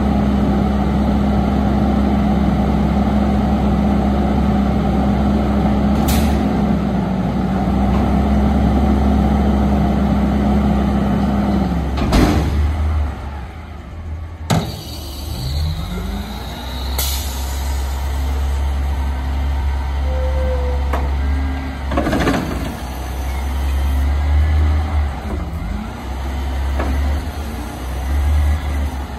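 Autocar ACX front-loading garbage truck running at raised idle with a steady hum while its packer compacts the recycling load. About halfway through, the hum drops away with a sharp air-brake hiss. The engine then revs up, and a second air-brake hiss comes near the end as the truck moves off.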